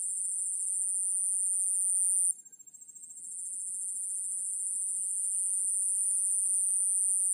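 A steady, high-pitched insect drone of the kind cicadas or crickets make. It breaks off suddenly a little over two seconds in, then starts again and slowly grows louder.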